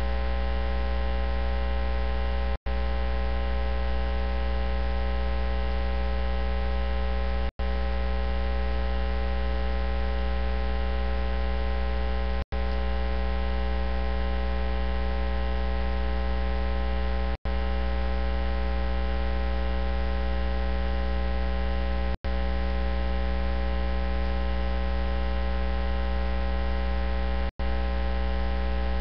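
Loud, steady electrical mains hum with a buzz of many overtones, cutting out for a split second about every five seconds.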